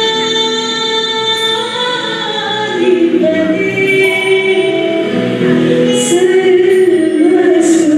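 Singing with musical accompaniment, the voice holding long notes that glide between pitches, with two short hisses near the end.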